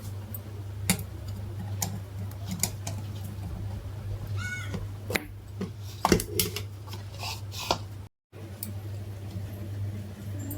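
Steady low electrical hum with scattered clicks and knocks, and a short bird chirp about four and a half seconds in.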